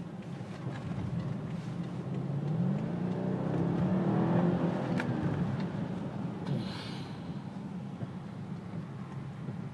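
BMW 650i's V8 engine heard from inside the cabin while driving, the engine note rising for about two seconds as the car accelerates, then easing off.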